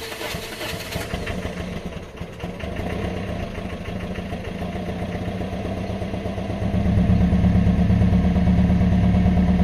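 Old Toyota Corolla's hard-starting engine, heard at the tailpipe, catching just after cranking and running on. A hiss stops about a second in, and the exhaust gets clearly louder about seven seconds in, then holds steady.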